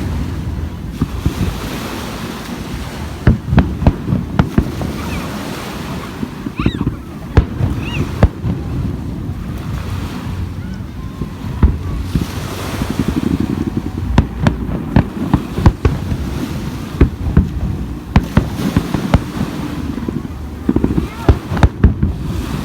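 Fireworks display: aerial shells bursting in an irregular string of sharp bangs over a steady low rumble, with a couple of short whistles about a third of the way in.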